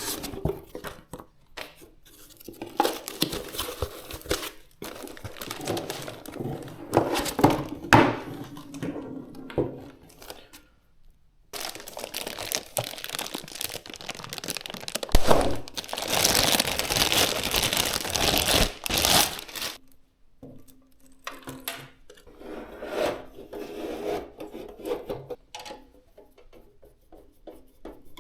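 Hands handling PC components and their packaging: irregular rustling, rubbing and tearing of packaging with scattered clicks and knocks. The loudest stretch of rustling and tearing comes about halfway through and lasts several seconds.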